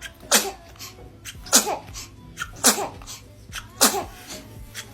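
Baby sneezing four times in quick succession, about a second apart, each sneeze a sharp burst that falls in pitch.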